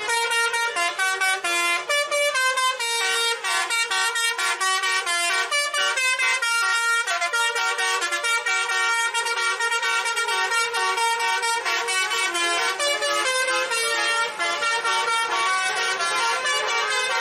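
A bus's telolet horn, a multi-tone 'basuri' air horn, playing a fast melody of stepped notes without a break.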